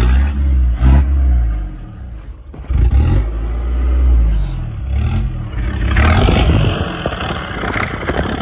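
Mitsubishi Shogun 4x4 engine running and revving in several surges, with knocks and rattles mixed in.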